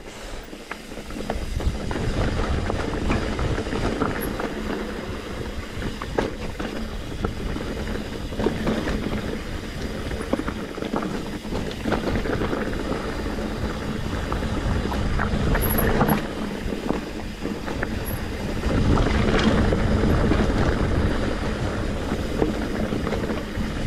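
Mountain bike ridden over rough dirt and rock singletrack: steady tyre rumble with the chain and frame clattering over bumps, louder for the last few seconds.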